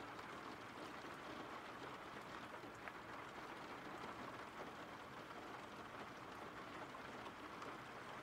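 Faint steady rain: an even hiss of falling rain with a few light drop ticks.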